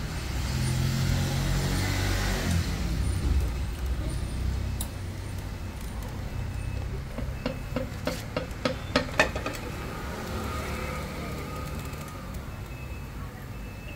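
A run of sharp metal clicks and knocks, loudest about nine seconds in, as a KTM Duke's clutch cover is worked loose and lifted off the engine case. Before it, a low traffic rumble.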